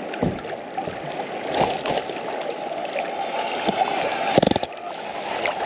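Fast river current rushing and splashing around a wading angler, with a few knocks from handling the fly rod. About four seconds in comes a brief loud burst of rapid rattling as the rod loads with a hooked fish.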